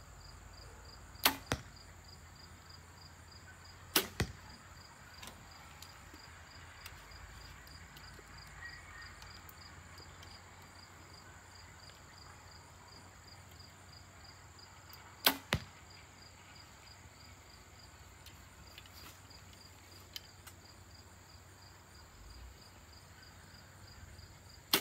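Compound bows (a Mathews Halon 6 and a Hoyt Pro Defiant) shot four times. Each shot is a sharp string slap at release, followed about a third of a second later by the arrow's smack into the target. The last shot comes right at the end.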